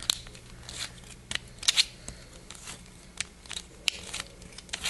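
A 3D-printed 1x2x3 twisty puzzle turned by hand: sharp plastic clicks and clacks at irregular spacing, roughly one every half second, with a louder close pair about a third of the way in.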